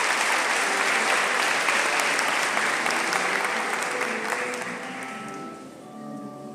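Audience applauding, the clapping fading away over about five seconds. Soft instrumental music with held notes comes through as it dies down.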